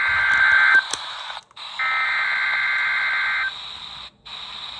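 NOAA Weather Radio Emergency Alert System SAME header data bursts: a harsh two-tone digital screech, the tail of one burst ending just under a second in and a second burst of about a second and a half, with radio hiss between. The header introduces a National Weather Service severe thunderstorm warning.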